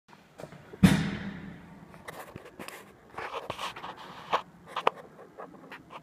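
A single loud knock about a second in, ringing away, followed by scattered clicks and rustling noises.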